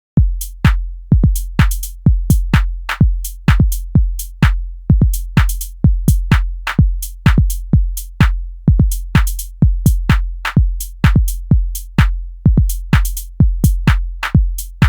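Minimal / deep tech drum-machine loop: a deep kick about twice a second with a long low tail, and crisp percussion clicks and hi-hat-like hits between the kicks.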